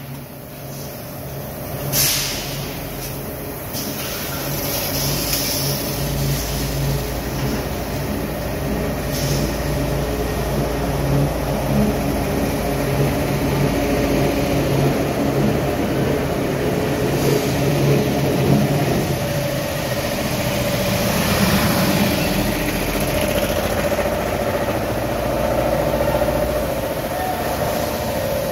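Steel coil cut-to-length line running: a steady machine hum from the leveller and its drives as steel plate feeds over the rollers, with a sharp knock about two seconds in.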